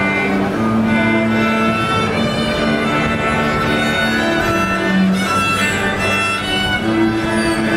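School orchestra playing live, violins holding long bowed notes over cellos.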